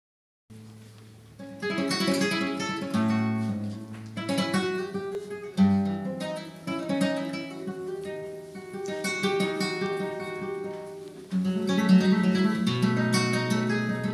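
Solo flamenco guitar playing a mix of chords and single-note passages. It comes in about half a second in, with sharp, loud chord attacks at about five and a half seconds and again after eleven seconds.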